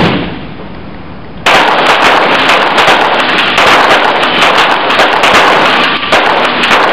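Olympic rapid-fire pistols (.22 Short) firing on an indoor range: from about a second and a half in, many sharp shots come in quick succession, probably from several lanes at once. They run together into a loud, dense crackle with the hall's echo, so no single shot stands out.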